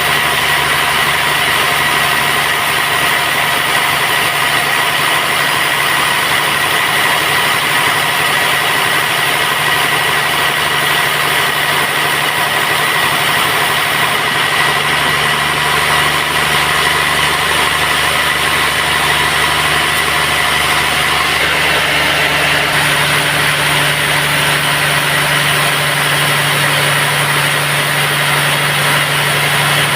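Band sawmill running steadily, a loud machine sound with a steady hum; its tone shifts a little about 22 seconds in.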